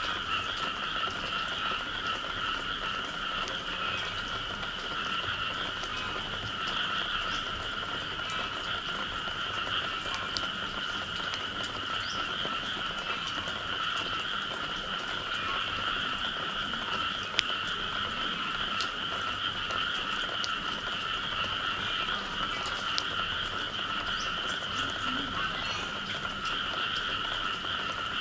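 A chorus of frogs calling steadily after rain, with scattered faint ticks and one sharper tick about 17 seconds in.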